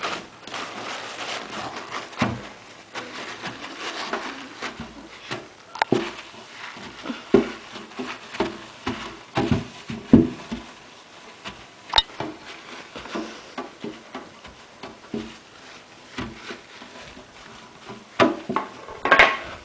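Paper towel rubbing and wiping inside a mouse cage, with scattered knocks and taps as the cage is handled and a sharp click about twelve seconds in.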